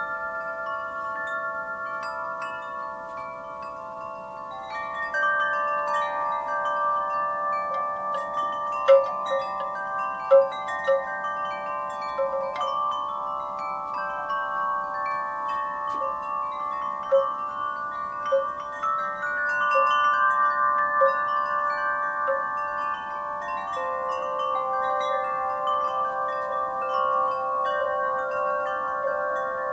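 Wind chimes ringing in a breeze: many struck tubes sounding overlapping, long-sustained tones, with a few brighter clinks now and then.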